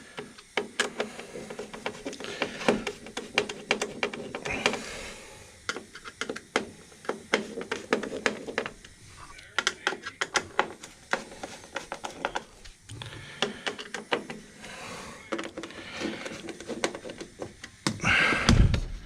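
Irregular clicks, knocks and rattles of an aftermarket plastic trim panel being worked into place along a car's door opening, with a louder thump near the end.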